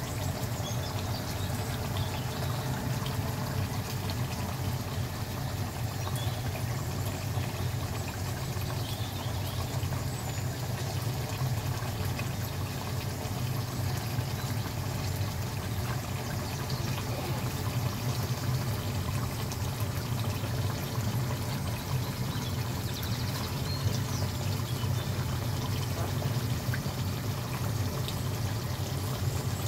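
Beef bhuna curry with whole garlic bubbling and simmering in a pot, a steady watery bubbling over a constant low hum.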